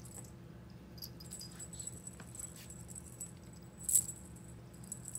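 Small clicks and a jangling rattle from a cat wand toy being dangled, loudest in one short burst about four seconds in, over a steady low hum.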